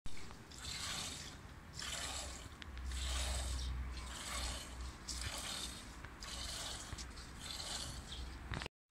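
Milk squirting from a cow's teats into a plastic bucket during hand milking: a hissing spurt about once a second as the teats are squeezed in turn.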